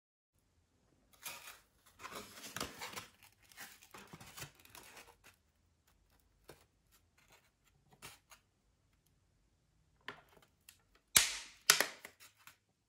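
Handling noises from a light foam-and-balsa rubber-powered model plane picked up and turned in the hands: a few seconds of rustling and scraping, scattered small clicks, then two sharp knocks or clicks near the end.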